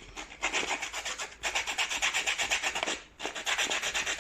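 Folded sandpaper rubbed quickly back and forth between the copper contact blades of a washing machine switch, several scratchy strokes a second with short pauses about a second and a half in and again about three seconds in. The blades are being sanded clean where they make contact.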